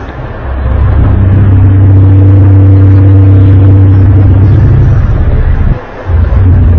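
A loud, low droning hum with a steady pitch, the kind of sound posted as the mysterious trumpet-like 'sky sound'. It swells in during the first second, cuts out for a moment near the end, then comes back.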